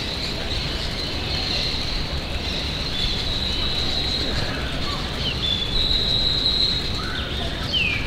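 Outdoor forest ambience: distant birds give thin, high whistled notes, held and stepping, with a few short gliding calls near the end, over a steady low background rumble.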